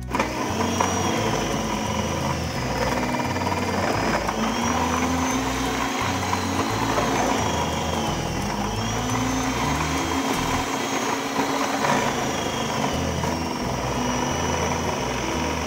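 An electric food processor's motor running under load while it shreds peeled cassava fed down the feed tube. It makes a steady whine that dips and rises in pitch as the load changes.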